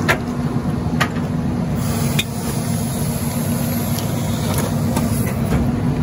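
Rear-loader garbage truck's diesel engine running steadily, a constant hum over a low rumble, with a few sharp metallic clicks near the start, about a second in and just after two seconds.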